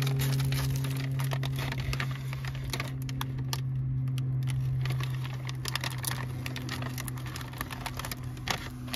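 Paint-coated newspaper masking crinkling and crackling in irregular bursts as it is peeled off a brake caliper by hand. A steady low hum runs underneath.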